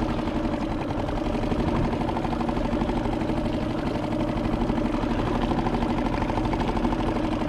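Small Suzuki outboard motor on a kayak running steadily at low trolling speed, an even engine hum with a fast, regular pulse.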